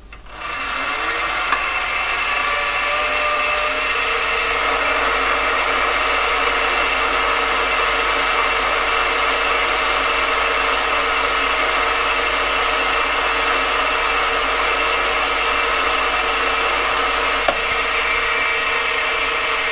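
AMA 714B mini lathe's 550 W motor starting up, its whine rising over the first second, then running steadily with a high whine while the power feed takes a 0.1 mm turning pass along a hard plastic bar.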